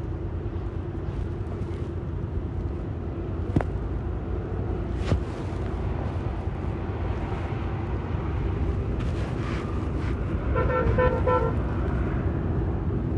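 Heavy diesel construction machinery running steadily with a low rumble, with two sharp knocks a second and a half apart. A vehicle horn sounds for about a second near the end.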